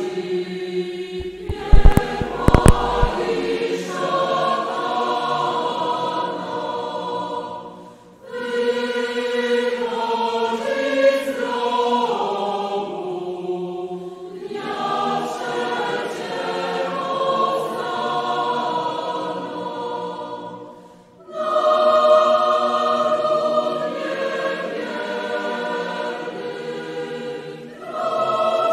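Background choral singing: sustained, pitched phrases broken by a few brief pauses. A short burst of loud, sharp clicks comes about two seconds in.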